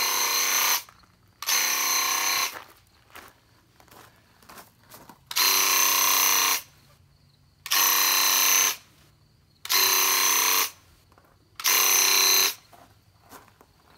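DeWalt Graco Ultramax cordless handheld airless paint sprayer running in six bursts of about a second each, a steady high buzz that starts and stops sharply as the trigger is pulled and released for each spray pass.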